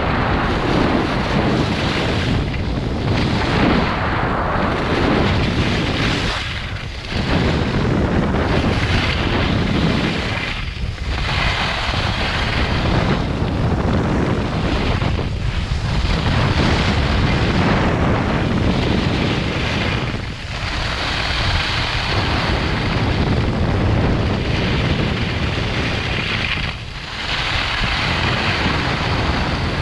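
Loud wind rushing over the microphone during a ski descent, mixed with skis sliding on groomed snow. The noise drops off briefly about every four to six seconds.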